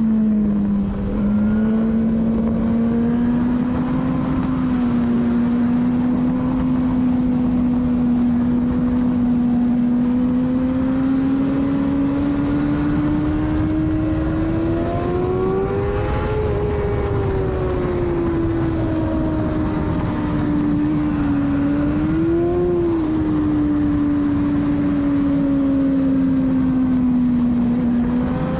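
Engine of a 2017 BMW S1000RR inline-four sportbike with an Akrapovic exhaust, running at steady high revs, heard from on board over wind rush. The pitch climbs gently about halfway through and gives a brief rise and fall a little later.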